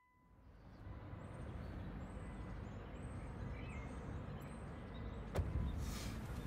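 Steady outdoor background rumble with faint high chirps, fading in at the start; a single sharp knock about five seconds in, then a brief rustling burst.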